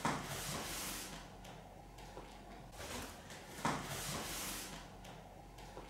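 Leather-and-vinyl grappling dummy rubbing and shifting as it is pulled into a choke hold, in two soft swells of rustling: one at the start and one about three and a half seconds in.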